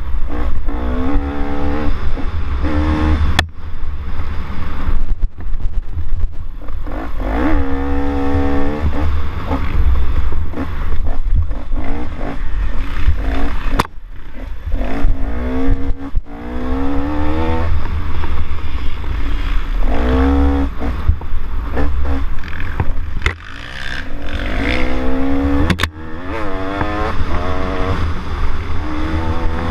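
ATV engine revving under hard riding, its pitch rising and falling again and again as the throttle is opened and closed, over a heavy wind rumble on the mounted camera. A few sharp knocks from the machine hitting bumps break through.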